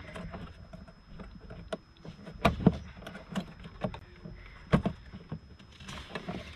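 Hands fitting an intake coupler and hose clamps onto a mass airflow sensor: irregular plastic and metal clicks and knocks. The loudest are a few sharp knocks about two and a half seconds in and just before five seconds.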